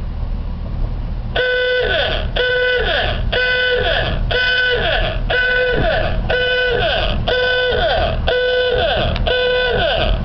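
A bell ringing in even, repeated strokes, about one and a half a second, starting about a second and a half in. Beneath it runs the low, steady sound of the Brill rail motor car moving slowly along the track.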